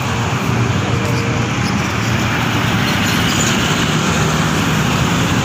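Steady road traffic noise: motor vehicles running, with no sharp events.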